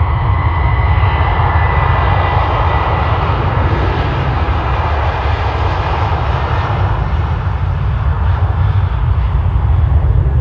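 Airbus A330-300 jet engines at takeoff power during the takeoff roll: a loud, steady rushing noise with a deep rumble and a faint high whine in the first few seconds.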